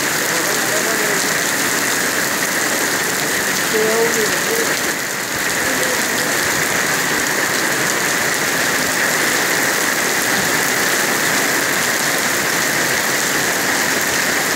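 Heavy rain pouring steadily onto a street, parked cars and stone paving.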